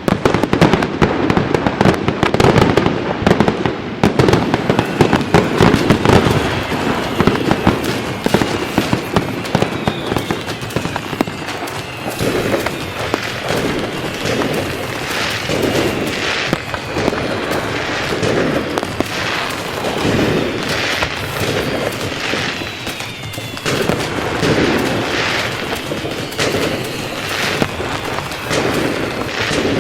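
Fireworks going off: dense rapid bangs and crackling at first, then falling whistles and a run of separate bursts about one a second.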